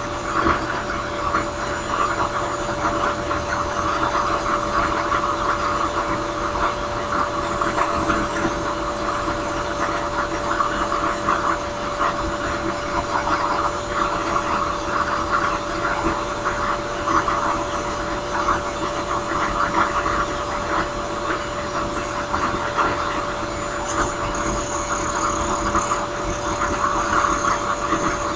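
Drill press spinning a sanding drum, its motor running with a steady hum. A briar pipe bowl is held against the drum, and the rasp of the sanding rises and falls as the wood is worked.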